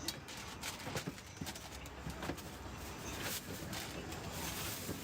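Scattered sharp knocks and clacks, roughly one or two a second, over steady background noise.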